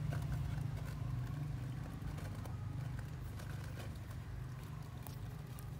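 A steady low rumble throughout, with faint scuffs and rustles as puppies scramble over wood and dry leaves.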